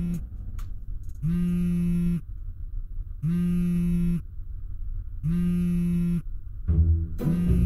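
A mobile phone ringing: three buzzing one-second tones, about two seconds apart, over a low steady hum. Other sound comes in near the end.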